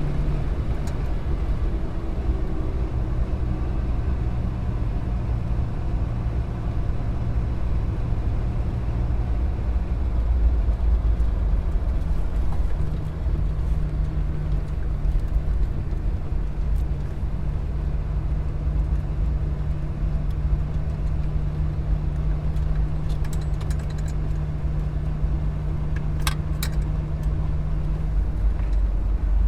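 Car traffic: a steady low rumble of engine and road noise with a held engine tone, and a few sharp clicks near the end.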